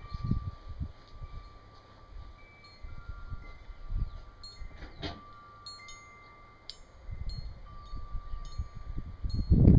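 Wind chimes ringing: several metal tones struck now and then, each holding for a second or more. Low rumbling thumps grow loud near the end.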